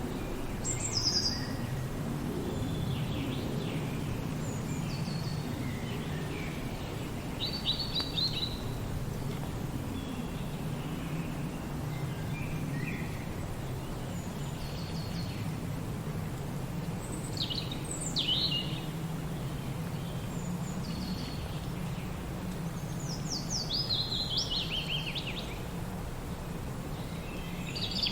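Steady low hum of wind through a forest, with birds calling every few seconds over it: short high chirps and quick falling trills, a few coming in a busier flurry.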